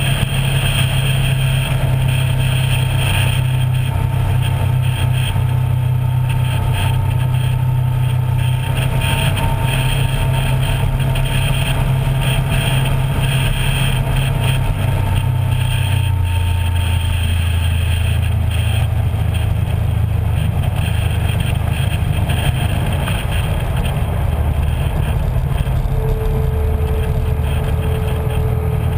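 A small boat's motor running steadily under way, heard from the bow along with a rush of water and wind. The engine note drops slightly about halfway through.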